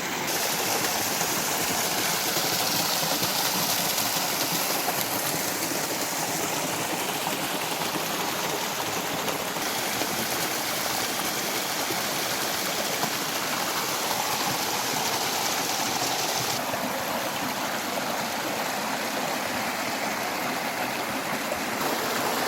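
Mountain river water rushing steadily over rocks.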